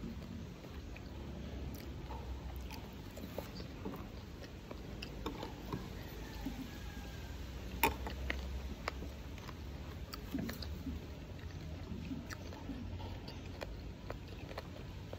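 Close-miked chewing of a mouthful of fried carne de sol (salted sun-dried beef) coated in cassava flour: soft, irregular mouth clicks, with a sharper click about 8 seconds in.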